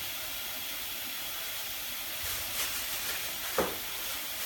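A steady hiss runs underneath. Faint scratchy rustling comes a little past halfway, then one sharp short knock, as a plastic cover is handled and fitted over an opened cat food container.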